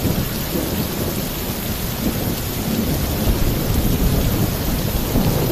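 Torrential rain pouring on a roof, a dense steady hiss, under a continuous low rumble of thunder.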